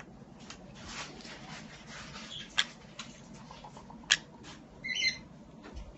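A pet parrot's short chirp about five seconds in, among scattered sharp taps and clicks.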